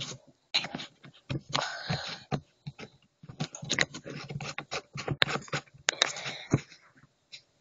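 Irregular quick clicks, taps and short scraping rustles of small objects being handled close by, stopping near the end.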